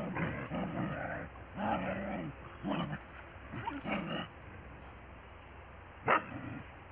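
Dogs vocalising as they play-fight: four rough bursts over the first four seconds, then one short, loud call about six seconds in.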